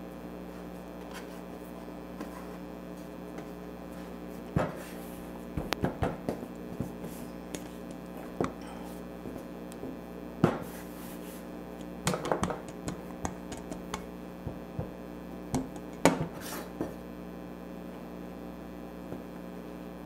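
Scattered light taps and clinks of metal cookie cutters and a metal baking sheet on a counter as cookies are cut from rolled dough, coming in small clusters over a steady electrical hum.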